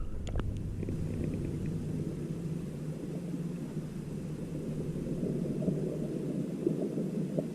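Steady low rumble of a running engine with a constant hum, and a single sharp click about a third of a second in.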